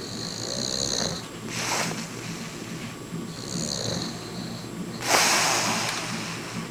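A man snoring in his sleep: two snore cycles, each a high whistling note followed by a rush of noisy breath. The second rush, about five seconds in, is the loudest.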